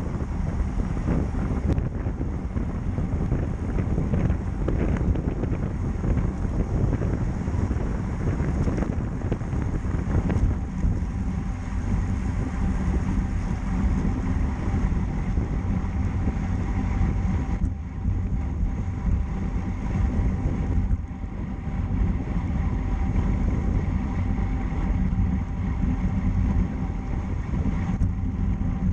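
Steady wind rumble on the microphone of a camera riding along on a road bicycle, mostly low-pitched and continuous.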